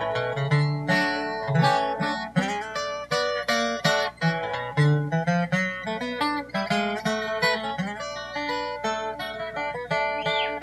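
Steel-string acoustic guitar flatpicked in quick single-note runs, leading an instrumental break of an old-time string band, with fiddle and cello under it. The cello holds low notes beneath the guitar.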